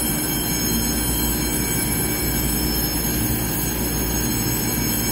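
An EMU3000 electric multiple unit standing at the platform with its doors open: a steady hum with several high, steady whining tones from its on-board equipment.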